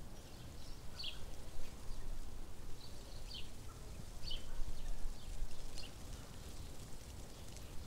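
Outdoor ambience: a low steady background rumble with birds giving short, high, falling chirps every second or two.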